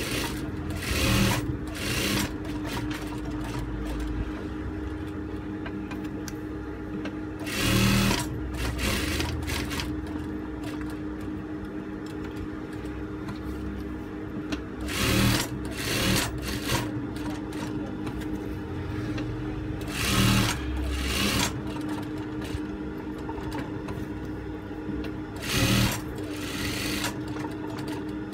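JUKI industrial sewing machine: the motor hums steadily throughout, broken by about ten short bursts of stitching with stops between them.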